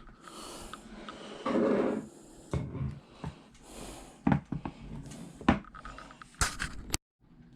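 Handling noise from a replica championship belt with metal plates and a leather strap: rustling and several light knocks and clicks, with a soft breath or two. The sound drops out completely for a moment near the end.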